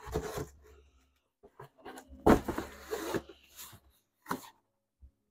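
Cardboard shoe boxes being handled and stacked, with a few short scraping and bumping sounds; the longest comes about two and a half seconds in.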